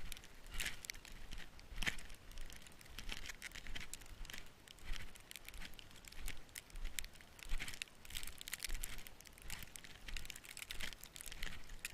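Crunching in deep snow, short crisp crunches repeating about once a second, like footsteps tramping through it.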